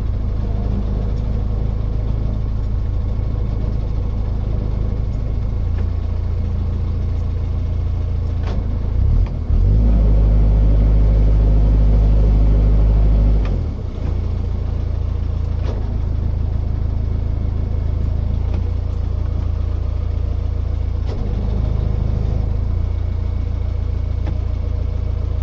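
A narrowboat's diesel engine running steadily at low revs as the boat moves slowly. About nine seconds in it is revved louder for around four seconds, then drops back to its earlier level.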